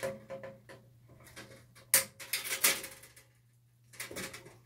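Wire cutters snipping the wires where they leave a fluorescent fixture's ballast: several sharp snips, the loudest about two seconds in with a quick run of snips after it, and more near the end.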